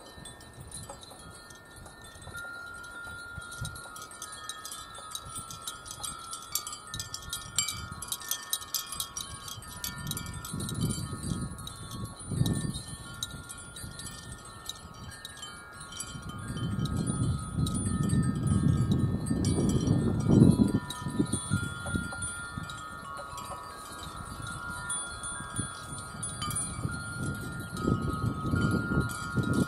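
Wind chimes ringing in the breeze: many overlapping held tones with quick tinkling strikes, busiest in the first third. A low rumble comes and goes underneath, loudest about two-thirds of the way through.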